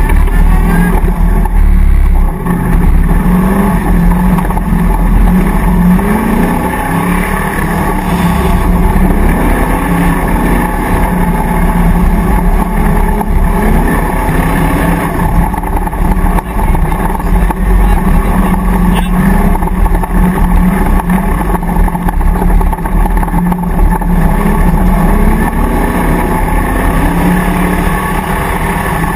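Land Rover safari racer's V8 engine heard from inside the car, running hard under load and rising in pitch again and again as it revs up through the gears across rough grass.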